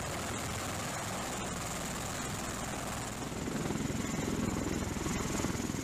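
MV-22 Osprey tiltrotor hovering with its nacelles tilted up, giving a steady rotor and engine noise with a rapid flutter. The noise grows a little louder about halfway through.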